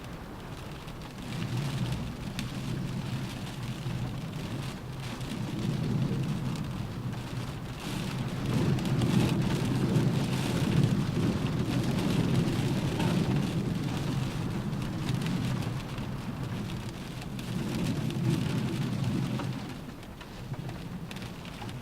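Rain pattering steadily on a car roof. Under it a deep rumble builds over the first few seconds, is loudest midway, and dies away near the end.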